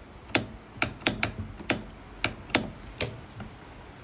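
Sharp clicks, about eight at irregular intervals, from a cordless circular saw being handled during reassembly.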